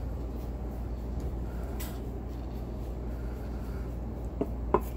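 Steady low background hum, and near the end two short clinks of tableware, the second louder.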